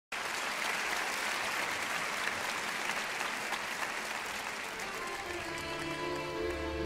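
Studio audience applauding, with many rapid claps. About five and a half seconds in, the accompaniment music comes in under the applause with long held low notes.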